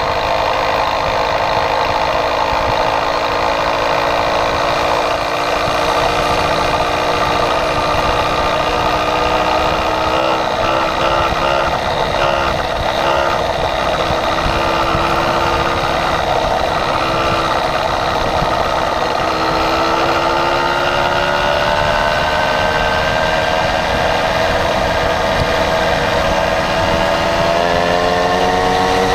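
Motorized bicycle's small engine running under way, a steady note that sags a little mid-way and then climbs steadily through the last ten seconds as the bike speeds up. Near the end a second, steadier engine note runs under it, from another motorized bicycle riding alongside.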